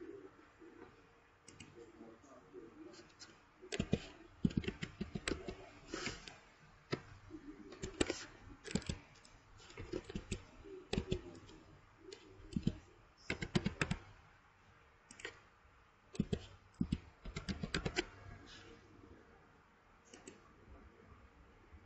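Computer keyboard being typed on in short irregular bursts of keystrokes.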